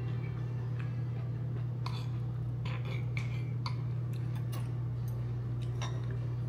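Eating utensils clinking against a bowl about six times, each a short click with a brief ring, over a steady low hum.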